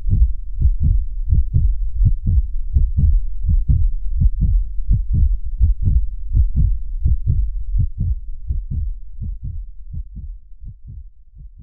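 Deep, evenly spaced thumps at about three a second, a heartbeat-style pulse of logo sound design, fading away near the end.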